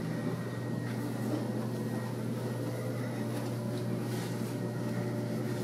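Steady low mechanical hum with faint hiss: the room tone of an empty apartment, unchanging throughout.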